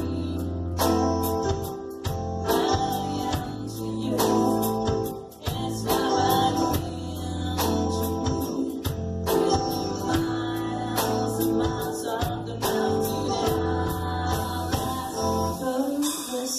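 A band playing live, with electric guitars, bass, drums and keyboard under a sung vocal line. A steady drum beat and a sustained bass line carry through, with a brief drop in level about five seconds in.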